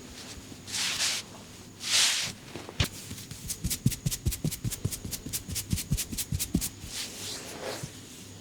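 Two brief swishes of hands rubbing, then a fast, even run of percussive massage strikes, about seven a second for roughly four seconds, each a dull thud with a crisp slap from the barber's hands tapping on the head or back.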